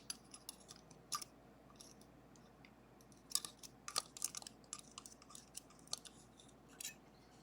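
Faint, scattered light clicks and scrapes of small metal parts being handled: a lever lifted out of a gutted Sargent & Greenleaf 4440 lever lock and the parts shifted about, with a busier run of clicks about halfway through.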